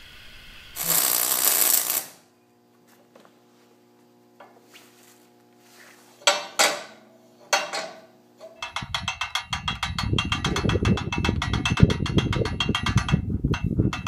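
Hand-cranked ratchet winch on a trebuchet being wound, its pawl clicking rapidly over the gear teeth for the last several seconds. Before it come a brief loud rush of noise near the start and a few sharp metal knocks.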